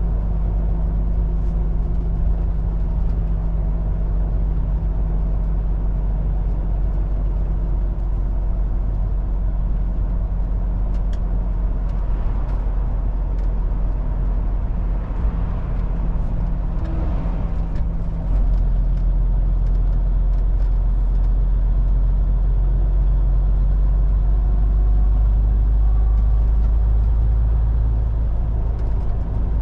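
MAN TGX 18.440 truck's diesel engine running while driving, with road noise. Its note steps down twice, about eight and eighteen seconds in, and is slightly louder after the second step. A swell of noise passes in the middle.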